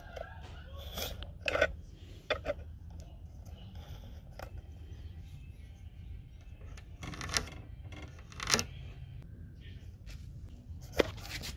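A spirit level and pencil being handled against a plywood panel: scattered short knocks and scrapes, a few of them a little longer like pencil strokes, over a low steady rumble.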